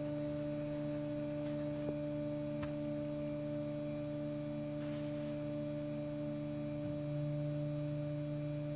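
A steady low hum of a few held tones, a little stronger from about seven seconds in.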